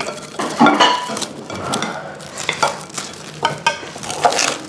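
Serving spoon scraping and tapping in a rice cooker's inner pot as yellow rice is scooped into a bowl, with ceramic bowls and plates clinking. There are several short, irregular knocks and clinks, a few of them ringing briefly.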